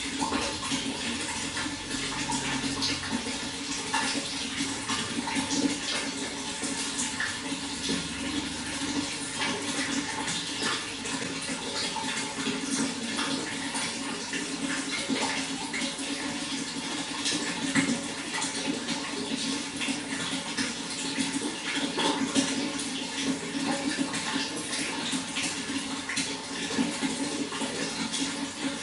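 Running water splashing and trickling steadily, with many small splashes and drips.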